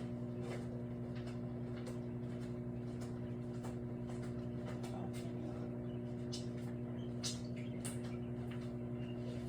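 Microwave oven running with a steady electrical hum, a bottle of soda heating inside, and scattered faint clicks and ticks over the hum.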